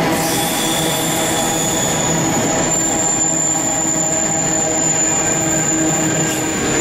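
Container freight train's flat wagons rolling past, wheels rumbling over the track, with a steady high-pitched wheel squeal that sets in about a second in and fades near the end.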